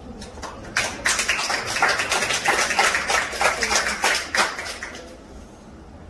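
A burst of clapping from a small crowd, many quick sharp claps, starting abruptly about a second in and dying away after about four seconds.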